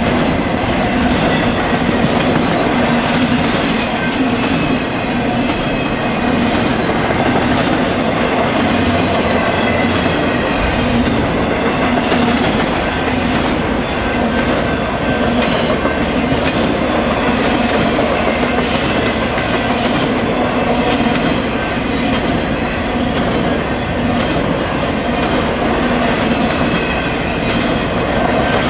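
Intermodal freight train cars loaded with highway trailers rolling past close by: a loud, steady rumble of steel wheels on the rail with scattered clicks over the joints.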